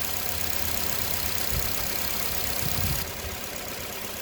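Nissan Cube's engine idling steadily, with a couple of short dull knocks partway through.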